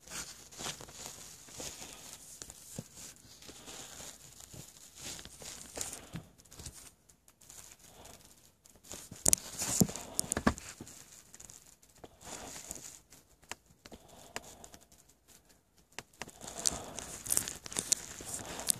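Irregular rustling and scraping of fabric, with knocks from handling close to the phone's microphone. It is louder about halfway through and again near the end.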